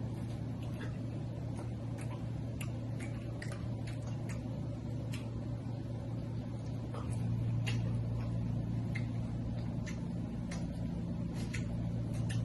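Eating sounds from a seafood boil: scattered small clicks and smacks of chewing and handling shellfish. A steady low hum underneath gets louder about seven seconds in.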